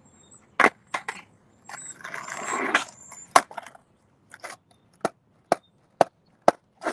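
Freestyle skateboard clacking on hard ground: a few sharp knocks, a short rolling scrape about two seconds in, then single knocks about every half second near the end.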